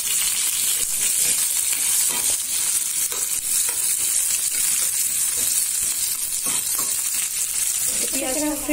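Sliced onions and cumin seeds sizzling steadily in hot oil in a non-stick frying pan, stirred with a spatula that scrapes the pan now and then.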